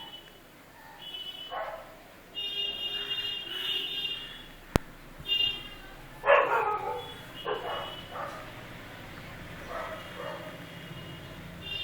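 A Nokia C1-00 ringtone playing through the phone's small speaker, a high-pitched phrase repeating over and over. Several loud, short calls break in over it, the loudest about six seconds in, and there is a single sharp click just before that.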